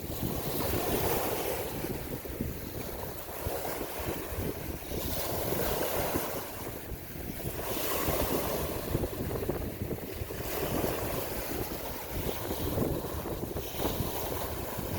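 Sea waves washing in and drawing back, surging every few seconds, with wind buffeting the microphone in a steady low rumble.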